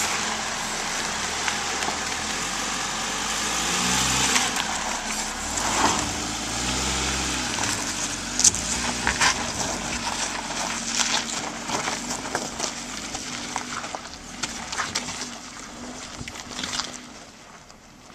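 Jeep Patriot crawling over a rocky dirt road: the engine runs at low revs, rising briefly about four to seven seconds in, while the tyres crunch and pop on gravel and rock. The sound fades as the vehicle pulls away near the end.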